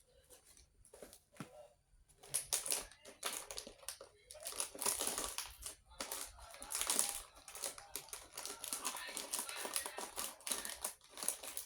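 Plastic snack packets crinkling and crackling as they are handled, in an irregular run of rustles from about two seconds in.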